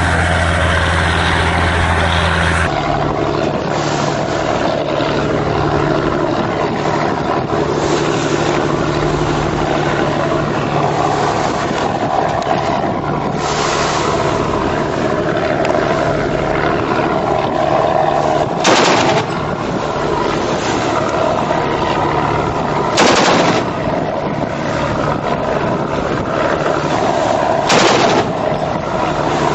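Boat engines running steadily at sea, with several short, sharp bursts spaced a few seconds apart from about halfway through.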